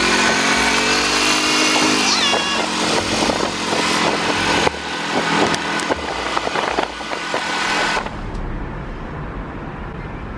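Street traffic and wind noise heard from an open golf cart on the move, with a passing vehicle's engine dropping in pitch about two seconds in. Near the end the sound cuts to a much quieter, duller room.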